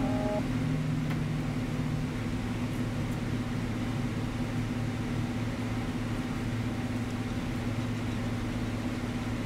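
Steady low machine hum with a constant low drone, the tail of a short mallet-percussion music sting dying away in the first half-second.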